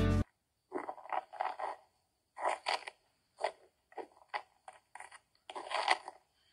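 Footsteps crunching on snow: a person walking, short uneven crunches about one or two a second. Background music stops abruptly just as it begins.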